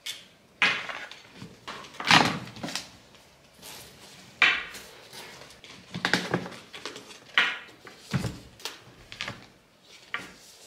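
Irregular knocks, light clatters and rustling as small objects are picked up, set down on a desk and packed into a backpack.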